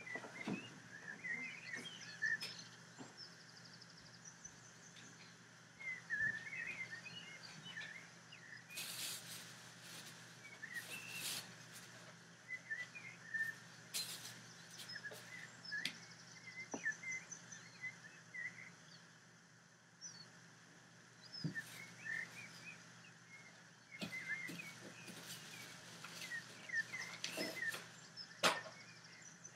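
Small birds chirping and warbling over and over, with a steady low hum underneath and a few sharp clicks.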